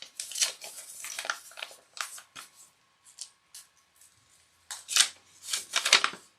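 Paper rustling and crinkling in a string of short, uneven scrapes, the loudest bunched near the end, as the instruction sheet is unfolded and handled.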